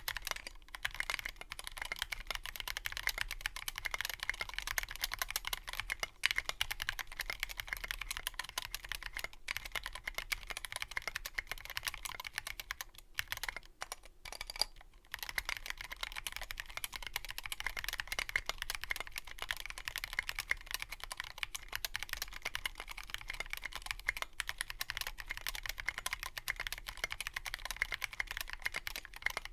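Continuous typing on a custom 60% mechanical keyboard with lubed Tealio linear switches and SA-profile Abyss keycaps in a sound-dampened Revo One case, with a couple of brief pauses near the middle.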